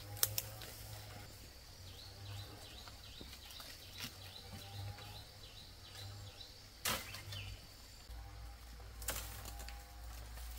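Dry bamboo stems and brush snapping and rustling as a person forces through and climbs a bamboo thicket. There are two sharp snaps just after the start, a louder crack about seven seconds in and another near nine.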